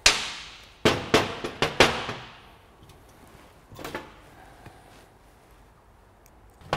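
Sharp metallic clanks, each ringing briefly: a loud one at the start, four more between about one and two seconds in, and a fainter one near four seconds. They come from a steel bench vise being undone and a propshaft with new universal joints being lifted out and set down on a metal-topped workbench.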